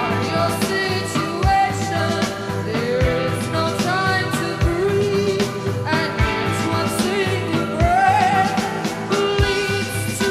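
A live post-punk rock band with a female lead singer singing over guitar, bass and drums, the drum strikes falling about every second and a half.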